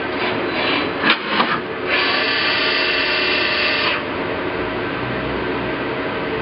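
1987 Pratt & Whitney Tape Drill Mate CNC machining center running a rigid-tapping cycle over its steady running noise. A few short bursts and a sharp click come in the first two seconds, then a steady whine for about two seconds that cuts off suddenly.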